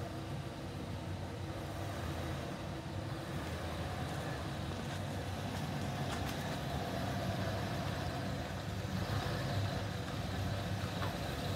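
1961 Studebaker Hawk's engine running at low speed as the car creeps forward, growing gradually louder as it comes closer.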